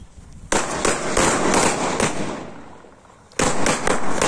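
Firecracker going off on the ground in a rapid string of sharp cracks over a hiss. One bout starts about half a second in and fades out by about three seconds, and a second bout of cracks starts near the end.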